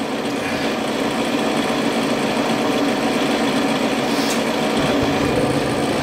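Steady mechanical hum as a gas forge with furnace-style in-shot burners is fired off. Near the end the burners light, with a faint tick and a swelling low rumble of gas flame.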